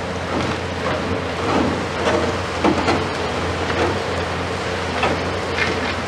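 Komatsu PC490 long-reach demolition excavator's diesel engine running steadily under a clatter of irregular cracks and knocks as its demolition jaws crush the concrete top of a tower and broken concrete falls away.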